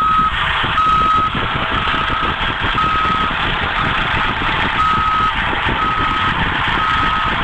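Backup alarm of a heavy vehicle or machine beeping steadily, about once a second, with one beep missing around the middle, over the machine's running engine.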